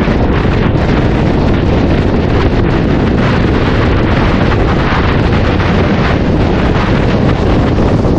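Loud, steady wind buffeting the microphone of a moving motorcycle, a continuous rush heaviest in the low end with no let-up.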